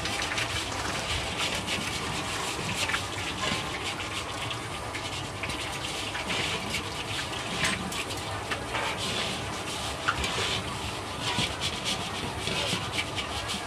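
Bamboo wok brush and wooden scraper scrubbing the inside of a large metal wok, swishing and sloshing dirty water around it in many short, irregular strokes.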